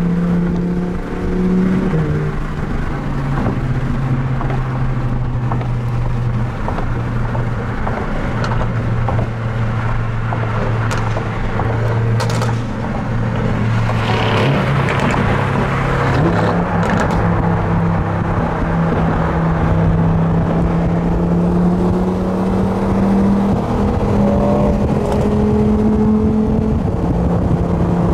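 Supercar engine running steadily at moderate revs while the car drives. Its note steps down a couple of seconds in, stays low, then climbs back up in steps in the second half, over a constant rushing noise.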